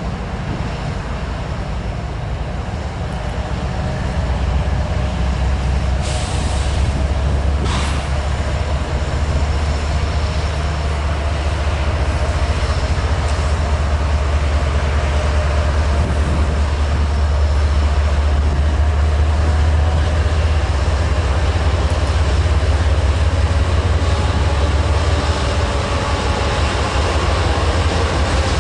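Freight train rolling past: a steady low rumble from the diesel locomotives and cars that grows louder a few seconds in. Two brief sharp noises come about six and eight seconds in.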